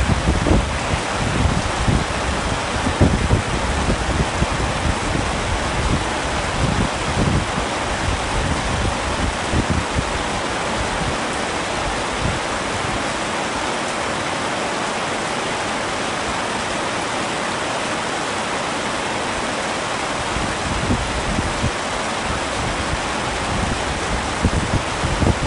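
Heavy rain falling steadily on a tent, an even, dense hiss. Irregular low rumbles come through in the first ten seconds or so and again near the end.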